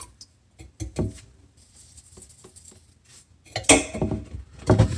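Handling noise from plumbing parts and tools: a few light clicks and knocks in the first second, then a louder rattling and rustling from a little past halfway to the end.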